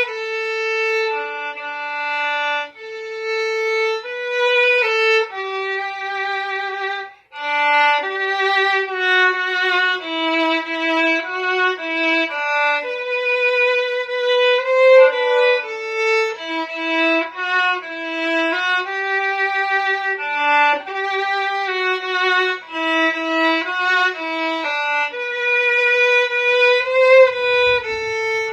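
Solo fiddle playing a slow tune in three-time, one melody line of bowed notes with a short break about seven seconds in.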